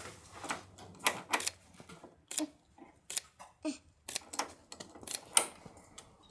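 Hand ratchet wrench clicking in short, irregular strokes as a shock mounting bolt is run in and tightened.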